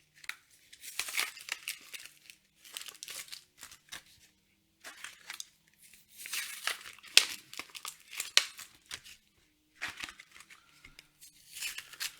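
Yu-Gi-Oh foil booster packs being torn open and their wrappers crinkled by hand, in irregular bursts with short pauses between packs.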